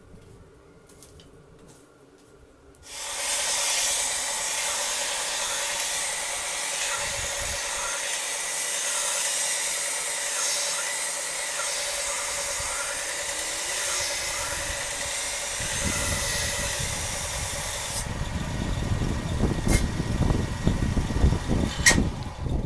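Bench belt sander running with a steady loud hiss as a steel knife blade, forged from a lawnmower blade, is ground on it. It starts suddenly about three seconds in, after a quiet stretch, and stops about 18 seconds in, leaving low wind rumble on the microphone and a sharp click near the end.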